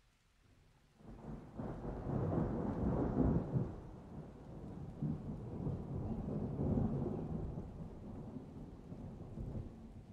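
Thunder rumbling: near quiet at first, then a low rolling rumble rises about a second in, is loudest a couple of seconds later, and keeps rolling in swells.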